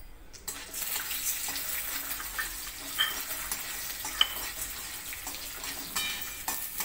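Dal sizzling lightly in a little hot oil in a steel kadhai while being stirred with a spoon, which clinks against the pan now and then. The dal is only being warmed in the oil, not fried.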